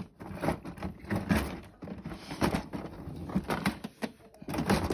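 Hands fitting a piece back into place: irregular small clicks, knocks and scrapes of handling, a few sharper knocks among them.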